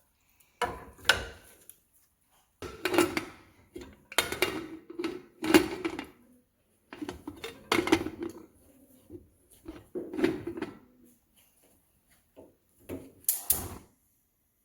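A spoon stirring meat in a metal pot, scraping and knocking against the pot in short bursts every second or two.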